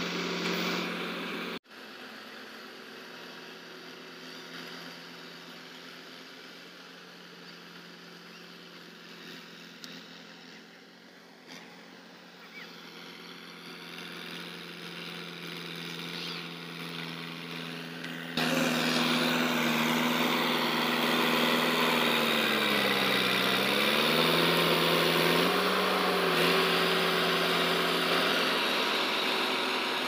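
Komatsu D50 crawler bulldozer's diesel engine running: close for the first couple of seconds, then fainter and more distant for a long stretch. It is loud and close again from about two-thirds in, where its pitch sags and recovers as the blade pushes soil.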